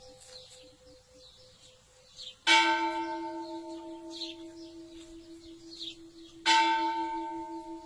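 A church bell tolled as a death knell, the slow ringing that announces someone has died. It is struck twice, about four seconds apart, and each stroke rings on and slowly dies away with a wavering hum.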